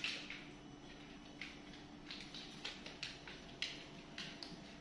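Faint, irregular footsteps and light taps on a hard tiled floor, about two a second, over a faint steady hum.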